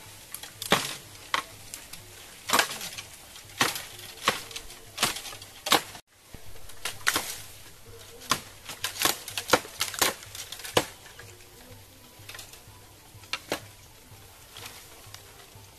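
Irregular sharp cracks and knocks of dry bamboo stems and twigs as a man climbs and works among them in a bamboo clump, a few snaps a second at times, with a brief dropout about six seconds in.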